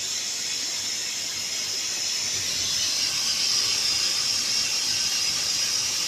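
Tesla Weld CUT160 plasma torch cutting 25 mm steel plate: a steady, high hiss that grows a little louder about halfway through.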